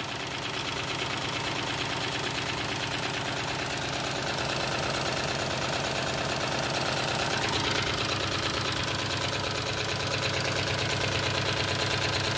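Wilesco D32 twin-cylinder live-steam model engine running steadily under steam, with a fast, even mechanical beat.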